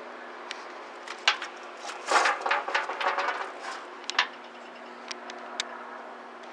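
Boots stepping and scuffing over the tractor's metal deck and frame, with dry leaves crunching underfoot and a few sharp taps of metal. The scuffing is loudest about two to three and a half seconds in, over a steady low hum.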